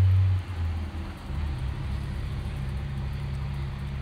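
Steady low motor hum, like an engine idling. It drops in level and shifts pitch about half a second in, then holds steady.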